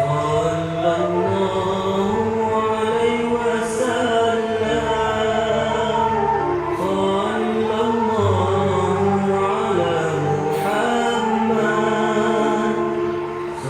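Slow background music of long, held notes in several layers, with chant-like vocals.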